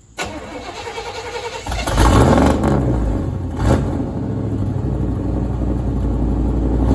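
A 1989 truck's engine cranking on the starter for about a second and a half, then catching and firing up loud, revving briefly and settling into a steady fast idle: a cold start after sitting about three weeks.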